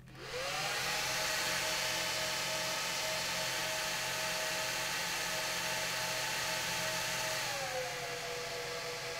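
HP ProLiant DL140 1U server's cooling fans spinning up at power-on: a sudden, loud whir with a whine that rises quickly and holds steady at full speed. About seven and a half seconds in, the whine drops in pitch as the fans slow to a lower speed.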